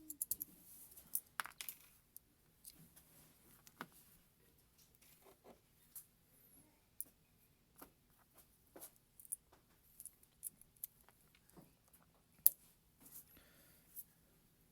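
Small knife parts being handled during reassembly of a folding knife's handle: scattered light metallic clicks and taps, with one sharper click late on.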